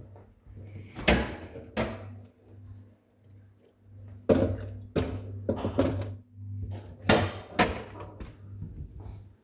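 A series of sharp knocks and thuds, about nine in all, as a cup and other things are handled and set down, over a steady low hum.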